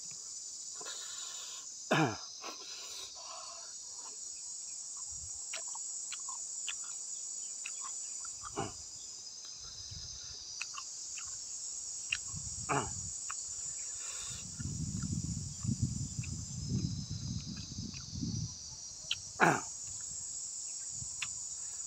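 Steady high-pitched chorus of insects, broken by a few short sharp clicks and crunches and, about two-thirds of the way in, a few seconds of low rumbling noise.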